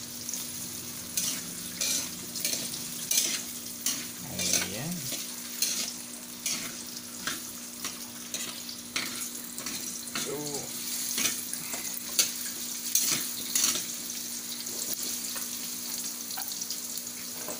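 Potato and carrot chunks sizzling in hot oil in a metal wok, with a metal spatula scraping and clicking against the wok as they are stirred. The scraping thins out in the last few seconds while the sizzle carries on.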